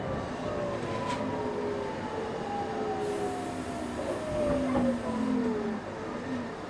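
JR 701 series train's GTO-thyristor VVVF inverter and traction motors whining inside the passenger car, several tones falling steadily in pitch as the train slows under electric braking, over the rumble of wheels on rail. A short click about a second in.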